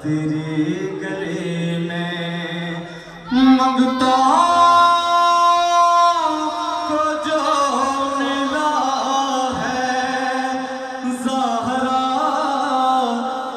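A man sings an Urdu devotional song solo into a microphone, amplified, with melodic ornaments gliding between notes. The loudest moment is a long held high note from about three and a half to six seconds in.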